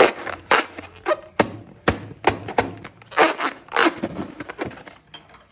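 Slime being squished and mixed by hand, giving an irregular string of sharp pops and clicks, about two a second, that stop shortly before the end.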